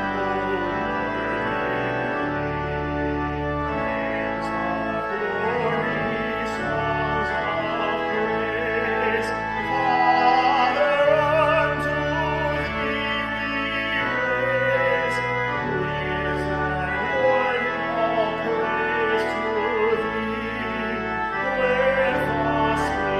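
A man's voice singing a hymn over organ accompaniment, the organ holding chords with steady low pedal notes under the melody.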